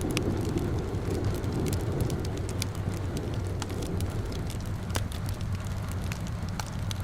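Rain-and-fireplace ambience: steady rain noise with a low rumble underneath, and a fire's sharp crackles and pops scattered irregularly throughout.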